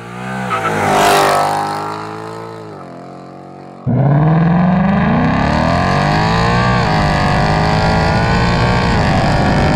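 A 2024 Mustang GT's 5.0-litre V8 with an X-pipe exhaust under hard acceleration. First the car accelerates past and fades away. Then, after a sudden cut about four seconds in, a loud, steady full-throttle run, the engine note climbing in pitch with one brief dip near the seven-second mark.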